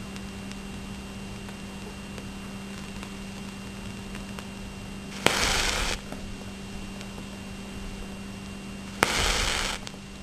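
Two match heads catching fire as a green laser beam ignites them, each a sharp pop followed by a hiss lasting under a second, about four seconds apart.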